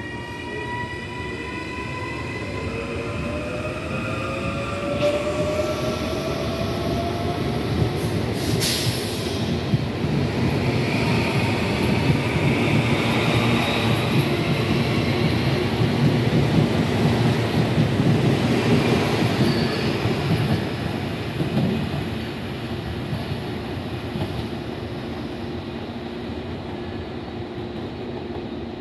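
CPTM Série 8500 electric multiple unit pulling away. Its traction motors whine in several rising tones for the first few seconds, then the cars roll by with a steady wheel-on-rail rumble. There are a few sharp clacks about eight to nine seconds in, the rumble is loudest midway, and it eases off toward the end.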